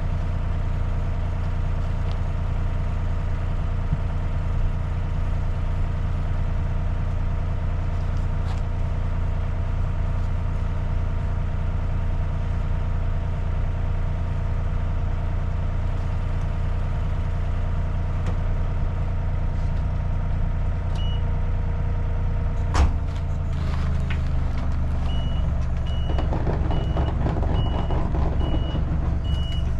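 A heavy machine engine running steadily. About three-quarters of the way through there is a sharp thump and the engine note shifts. A short warning beep then repeats a little more than once a second near the end.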